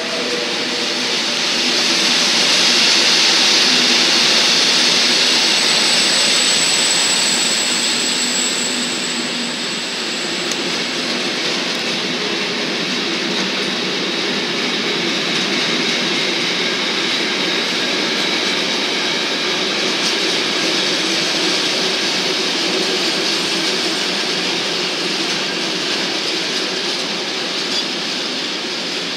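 Freight train of truck semitrailers on pocket wagons rolling past, a steady rumble and clatter of wheels on the rails, loudest early on the pass. A thin high wheel squeal rises over it briefly about six seconds in.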